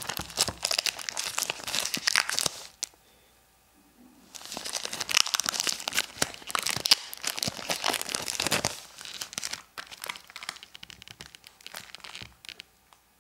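Clear plastic shrink-wrap crinkling and tearing as it is pulled off a cardboard trading-card booster box. The wrap is hard to get open. It comes in two long spells of dense crackling with a brief pause about three seconds in, then lighter scattered crackles near the end.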